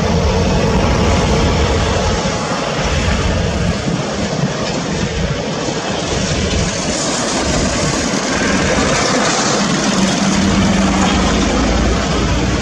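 Boeing 737-300 freighter's CFM56-3 turbofan engines at takeoff thrust during the takeoff roll: a loud, steady jet noise with a deep rumble underneath.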